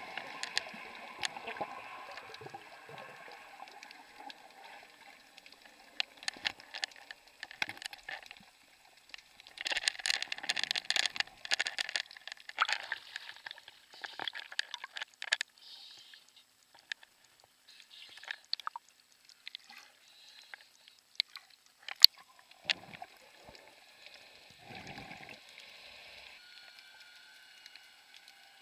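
Water sloshing and gurgling around a camera carried by a swimming snorkeler as it dips under and breaks the surface. There are scattered small clicks, a burst of splashing about ten seconds in, and one sharp click later on.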